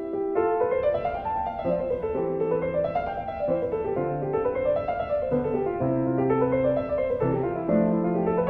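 Background piano music: flowing arpeggios rising and falling over held bass notes.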